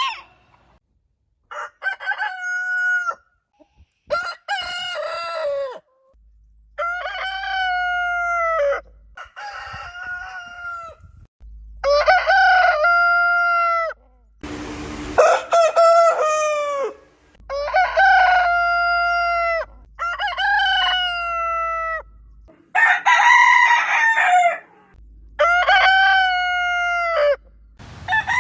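Roosters crowing, about nine separate long crows one after another. Each crow lasts a second or two and drops in pitch at the end, with short gaps between them.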